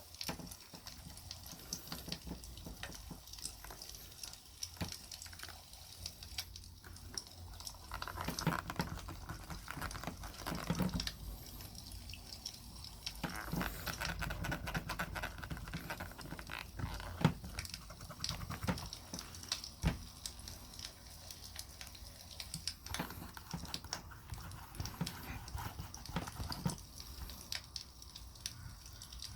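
Wood campfire crackling with irregular small pops and snaps, with spells of soft rubbing as beeswax is worked into a full-grain leather knife sheath.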